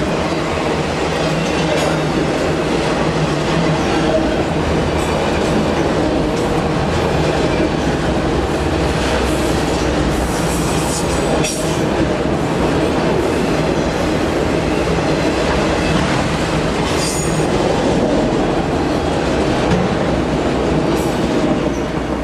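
Freight train of enclosed auto-rack cars rolling past close by: a steady rumble of steel wheels on the rails, with a few brief sharp high sounds. The last car passes near the end and the sound starts to fall away.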